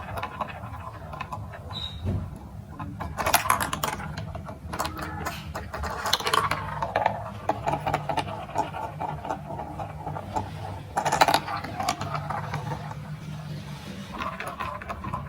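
Glass marbles rolling and clacking along a plastic building-block marble run: a steady run of small clicks and rattles, with louder bursts of clatter about three, six and eleven seconds in.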